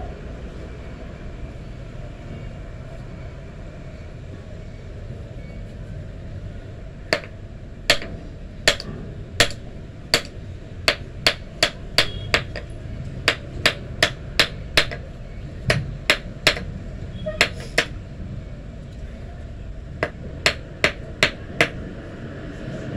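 Hammer striking metal on a small block anvil: a series of sharp, ringing blows that begins about seven seconds in, roughly two to three a second, with a short pause near the end.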